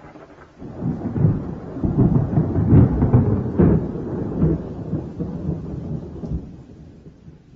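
A long roll of thunder, swelling about half a second in and slowly dying away toward the end. It is a sound effect laid under a title card.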